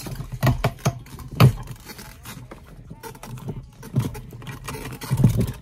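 Plastic fuel pump module of a 2017 Mustang GT being handled and worked out of the fuel tank opening with rubber-gloved hands: irregular knocks and scrapes, the loudest knock about one and a half seconds in.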